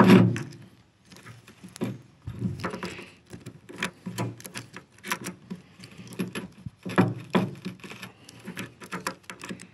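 Irregular metallic clicks and scrapes of a pliers tip prying at a U-joint clip ring in a steel PTO yoke's bearing-cap bore, where paint is holding the ring in.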